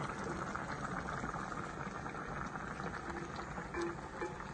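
Pot of bottle gourd chunks and fish in water boiling on a portable gas stove, bubbling steadily while a wooden spoon stirs it.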